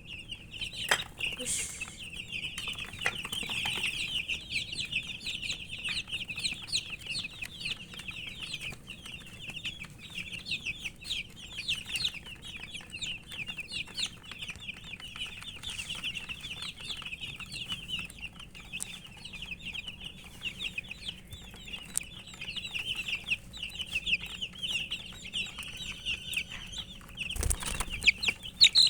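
A brood of baby chicks peeping without pause, many short high chirps overlapping, which the keeper puts down to thirst for drinking water. A brief thump near the end.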